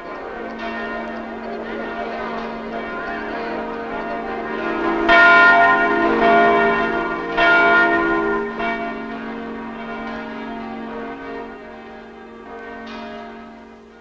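Large church bells ringing, their many tones hanging in the air. There are two loud strikes about five and seven and a half seconds in, and then the ringing slowly fades away.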